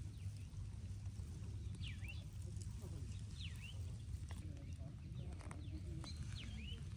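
Small birds calling: short, high chirps that sweep down and back up, repeating every second or two over a steady low hum.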